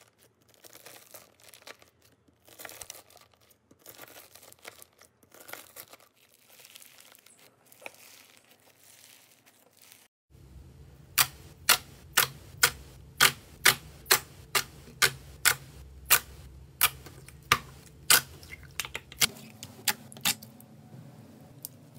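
Foam-bead slime crackling faintly as a knife slices through it. About ten seconds in, the sound changes to sharp, loud pops, a little under two a second, as hands squeeze and pull the slime.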